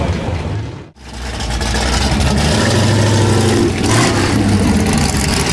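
Classic American muscle-car engine running close by, its note rising briefly about three seconds in. The sound fades out and back in about a second in.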